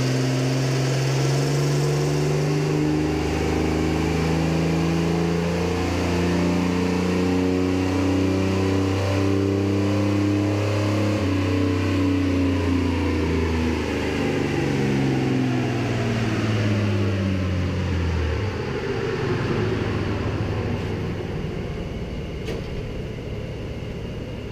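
1992 Chevy S-10 pickup's engine doing a dyno pull on a chassis dynamometer. It rises steadily in pitch for about twelve seconds, then falls away over the next several seconds as it comes off the throttle, and a fading rumble from the rollers winds down near the end.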